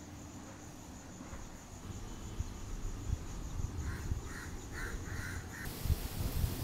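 A crow cawing four times in quick succession about four seconds in, over the steady high drone of insects.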